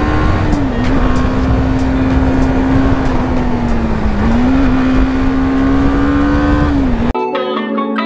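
BMW G 310 GS single-cylinder motorcycle engine running at steady high revs under load, with heavy wind and road rush; its note dips briefly under a second in and again about four seconds in. About seven seconds in the sound cuts abruptly to background music.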